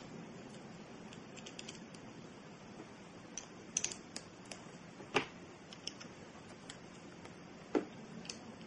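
Small plastic Lego pieces clicking as they are handled and pressed together: scattered light clicks, a few in quick succession, over a faint steady hiss, with the sharpest click about five seconds in.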